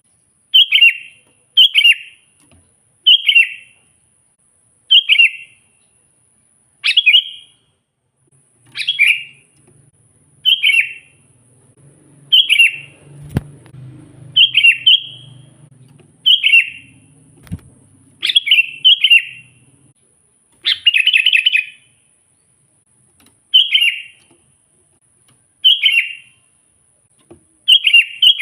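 Sooty-headed bulbul (kutilang) calling over and over in short, bright chirping phrases, one about every one to two seconds.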